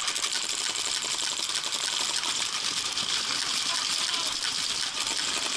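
Paintball markers firing rapidly, a steady dense clatter of pops with no let-up.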